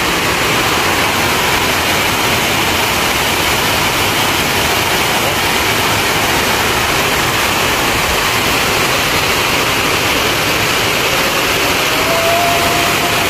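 Steady rush of water pouring over a dam, a constant loud noise with no breaks.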